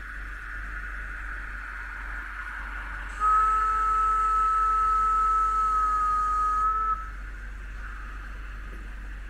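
Märklin H0 model trains running on the layout with a steady whir; about three seconds in, a model locomotive's sound decoder plays a steam whistle for nearly four seconds, which cuts off abruptly.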